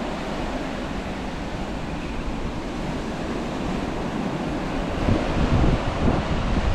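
Sea surf washing on the shore with wind blowing on the microphone, the low wind rumble growing louder and gustier about five seconds in.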